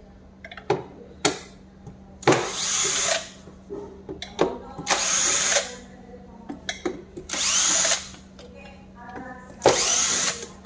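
Cordless drill/driver backing out the fasteners on a Kärcher WD6 Premium vacuum's motor head: four short runs of the motor, each under a second and spinning up with a rising whine, with clicks and knocks from handling the tool and housing in between.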